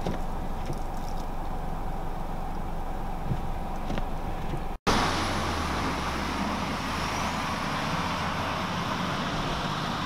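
Snowplow truck driving through a snowy intersection: a steady low engine rumble with tyre and road noise. It follows a sudden cut about five seconds in, before which there is only a steady ambient hum with a few light clicks.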